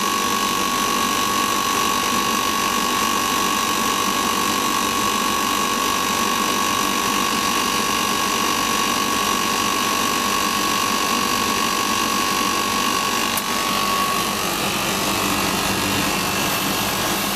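Condensing unit's condenser fan motor running at close to full speed under its fan speed controller, with the condenser blocked to push the head pressure up, along with the compressor. A steady high whine runs through the sound; a single click comes near the end, and the whine fades soon after.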